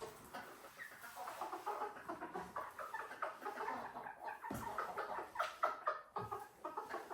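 Chickens clucking with many short, overlapping calls, with a couple of soft knocks about four and a half and six seconds in.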